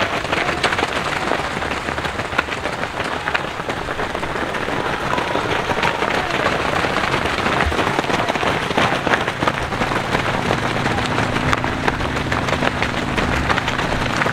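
Footfalls of a large pack of cross-country runners on a dirt trail: many feet striking at once in a dense, irregular stream of small thuds and crunches. From about ten seconds in, a low steady hum joins underneath.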